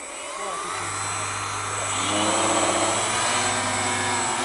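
Radio-controlled model hovercraft's lift fan and twin ducted thrust propellers spinning up: a whine that rises in pitch and grows louder over the first two seconds, then runs steadily.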